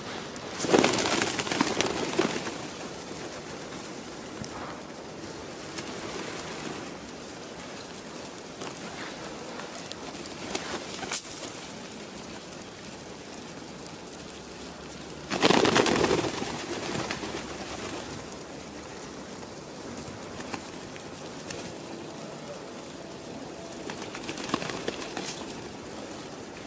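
A flock of feral pigeons feeding close by, cooing, with two loud flurries of wing flapping: one about a second in and one around the middle.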